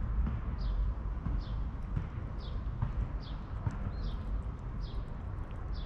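A tabby cat eating wet chicken-in-jelly cat food, with small soft chewing clicks, over a steady low rumble. A high, falling chirp repeats about every three quarters of a second.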